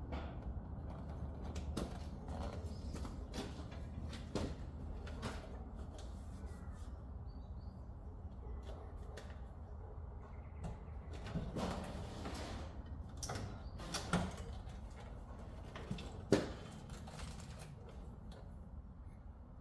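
Scattered light clicks and knocks over a low steady hum, with two sharper knocks, about 14 and 16 seconds in.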